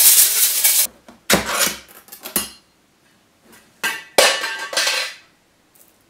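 Silica gel beads rattling inside a metal tin as it is shaken, stopping about a second in; then a few metallic clanks and scrapes from the tin and its lid being handled, with a sharp knock about four seconds in.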